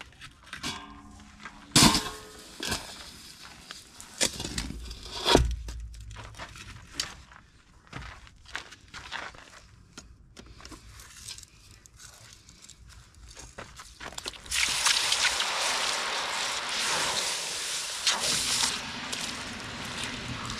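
Metal tools clinking and knocking against metal and gritty sand as a freshly poured hot metal casting is dug out of its sand mold with pliers. About two-thirds of the way through, a loud steady hiss and sizzle lasting several seconds as the hot casting is quenched in a bucket of water.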